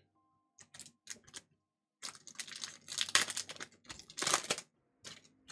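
Pokémon trading cards and their foil booster-pack packaging being handled: a run of irregular crinkling and rustling bursts, densest and loudest in the middle of the stretch.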